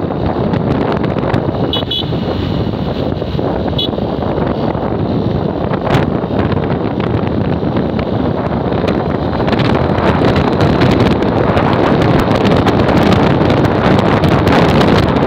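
Wind buffeting the microphone of a moving motorcycle, blended with engine and road noise, with the steady rush getting a little louder in the second half. Short high beeps come about two seconds in and again near four seconds.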